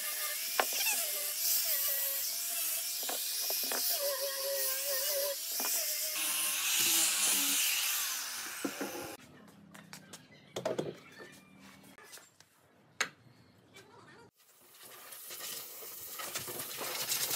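Small angle grinder with a sanding disc sanding pine, its motor whine wavering under load over a steady hiss of abrasion, for about the first nine seconds. Then it stops, leaving scattered handling knocks and clicks, with one sharp click.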